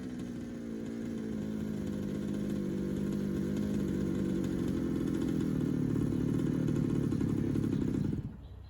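Small two-stroke gas engine of an HPI Baja 5B SS 1/5-scale RC buggy, its carburettor freshly rebuilt, idling steadily. It stops abruptly about eight seconds in.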